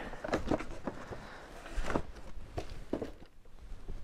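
Cardboard boxes being handled and shifted inside a large cardboard box: scattered light knocks and rustling.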